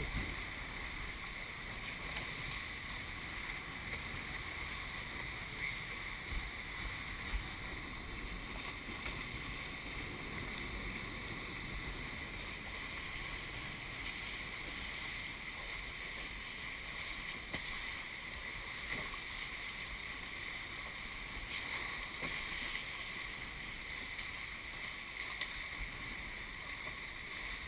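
Steady rush and splash of water streaming past the hulls of a Hobie 21SE catamaran sailing at speed.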